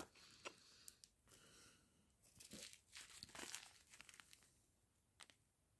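Faint crinkling of small plastic zip-lock bags of round diamond-painting drills being handled, with a few light clicks.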